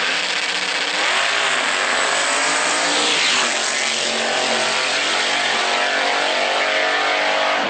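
Turbocharged LS V8 drag car launching at full throttle, its engine note climbing in pitch as it pulls away down the strip. It is loud and rough through a camcorder microphone.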